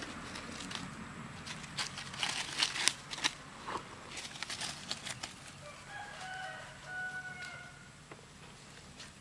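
Crackling and rustling of steps through dry fallen leaves and grass, with sharp crunches in the first half. Past the middle, a rooster crows once: one pitched call in a few linked parts.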